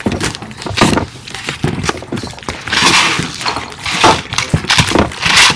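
A jumble of small handling noises from many people working with materials at once: irregular clicks, taps and clinks, with two longer rustles about three seconds in and near the end.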